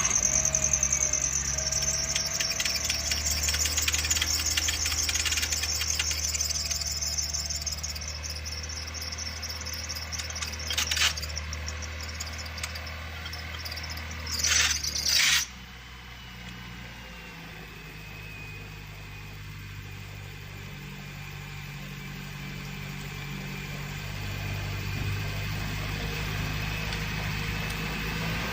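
Car engine idling with the serpentine (alternator) belt squealing in a fast, high chirping pulse. About halfway through, after a couple of short loud bursts, the belt squeal stops abruptly and the engine idles on quietly.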